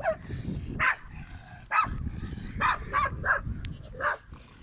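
Dog barking, about seven short barks at uneven intervals.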